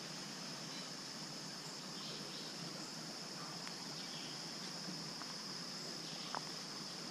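A steady, high-pitched insect chorus, with a faint hiss underneath and one short click near the end.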